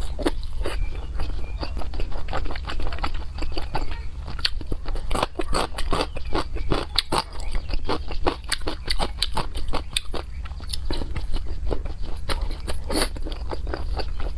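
Close-miked wet chewing and mouth smacking as a person eats soft, fatty pork belly, a quick irregular run of sticky clicks and smacks.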